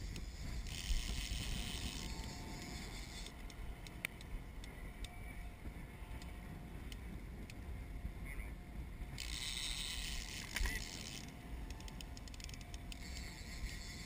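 Wind buffeting the microphone over the hiss and wash of choppy water against a small boat, with a few stretches of brighter hiss and scattered small clicks.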